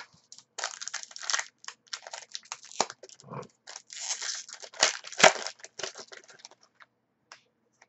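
Trading-card pack wrapper being crinkled and torn open by hand, a run of irregular crackles and rustles that die away near the end.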